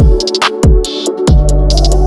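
Electronic background music with sharp drum and hi-hat strikes and a deep bass that slides down in pitch three times, then holds a low note from about a second and a half in.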